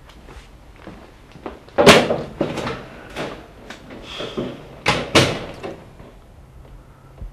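A door being opened and shut, with sharp bangs about two seconds in and again about five seconds in.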